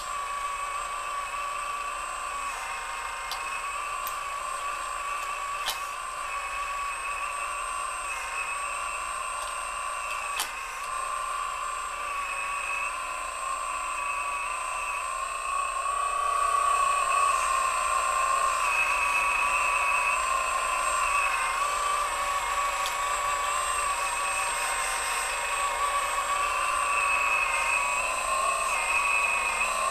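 Radio-controlled scale Komatsu excavator's electric drive whining steadily as it digs and swings, the pitch wavering and dipping briefly under load; it gets louder about halfway through, with a couple of faint clicks early on.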